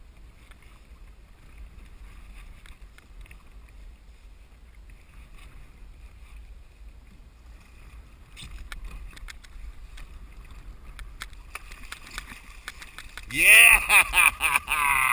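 Low wind and water noise around a kayak. From about eight seconds in come splashes and clicks as a hooked coho salmon thrashes at the surface. Near the end a man's voice breaks in loudly.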